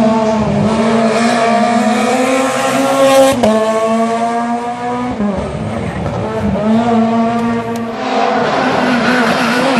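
Rally car engine at high revs, accelerating hard: its pitch climbs, then drops sharply at each gear change, three times in all. Near the end a rushing hiss takes over.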